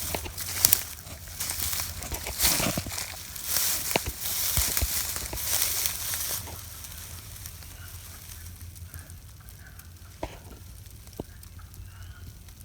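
Footsteps crunching through dry leaf litter for about six seconds, then they stop. Faint duck-like clucking from a chorus of wood frogs comes through after that.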